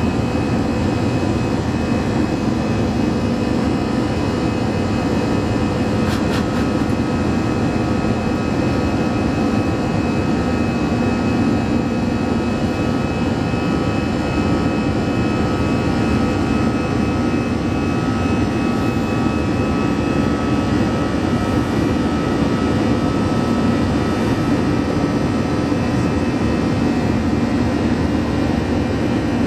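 Cabin noise of an Airbus A321-200 climbing out after takeoff: the jet engines at climb power and the rush of air make a steady, even roar with a constant multi-tone hum running through it, heard from inside the cabin.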